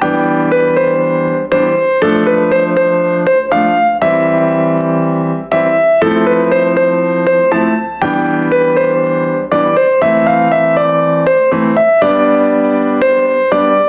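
Background piano music, notes and held chords following one another at an even pace.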